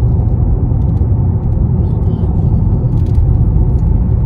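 Steady low road and engine rumble heard from inside the cabin of a car travelling along a road.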